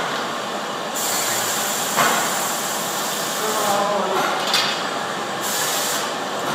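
Automatic quilt-binding sewing machine running: a steady rushing hiss whose high end cuts out briefly a couple of times, with a sharp knock about two seconds in.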